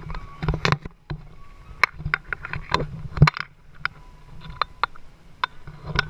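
A string of irregular sharp clicks and knocks, loudest about three seconds in, over faint music and a low hum.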